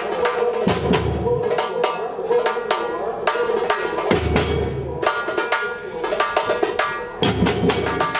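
Samba percussion band playing: a steady run of sharp, high hand-percussion strikes, with a deep surdo drum boom about every three seconds.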